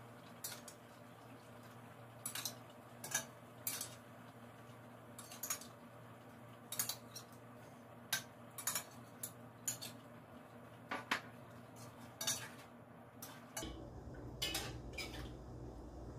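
Cooking utensil knocking and scraping against a large pot while stirring a chicken-and-pineapple stew: irregular light clicks every second or so. A low steady hum comes in near the end.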